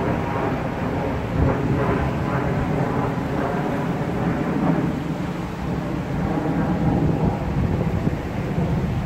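Wind buffeting the phone's microphone: a steady low rumble that surges and eases unevenly.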